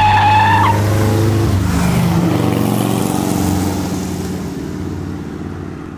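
Car engine sound effect speeding away, its note slowly falling and fading out over several seconds, with a high squeal in the first second.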